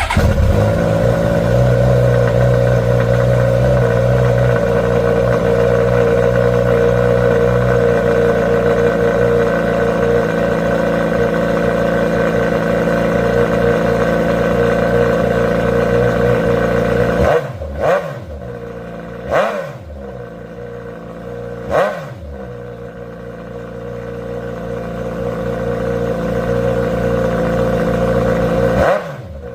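2025 Suzuki GSX-S1000's inline-four engine with a Dominator GP3 slip-on muffler (catalytic converter still fitted) cold-starting and running at a steady fast idle. After about 17 s the idle settles lower, then three quick throttle blips, and the revs climb slowly before dropping back near the end.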